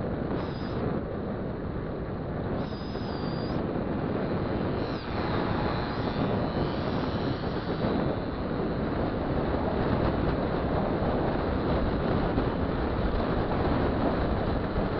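Wind and road noise from a vehicle travelling at speed, rushing over an action camera mounted on it, with engine noise mixed in. It grows a little louder about eight seconds in.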